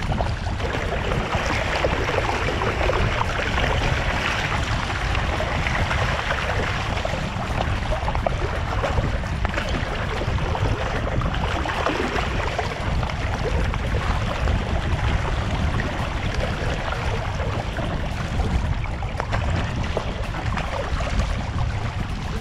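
Water rushing and splashing along the hull of a paddled sit-on-top kayak, with splashes from the paddle blades at each stroke over a steady low rumble.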